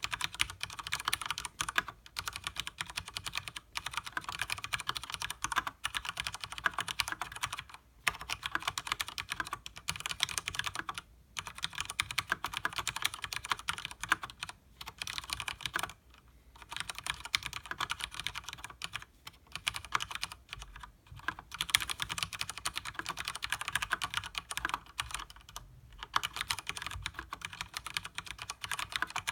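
Fast, continuous typing on a Leopold FC900R mechanical keyboard with Cherry MX Speed Silver linear switches and double-shot PBT keycaps: a dense stream of key clacks, broken by brief pauses every few seconds.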